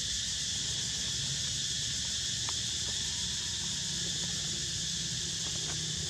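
Steady high-pitched insect chorus, with a low rumble underneath and a few faint clicks.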